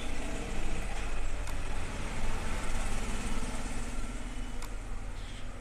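A steady low mechanical drone, with two sharp clicks partway through.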